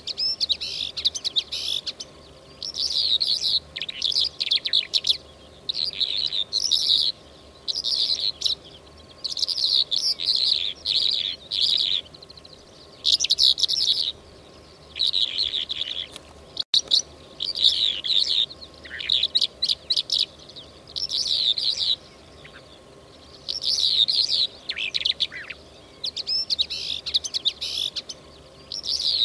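Calandra lark song, as used for a hunting lure call: a recording of quick, jangling chirped phrases about a second long, repeated again and again with short pauses between.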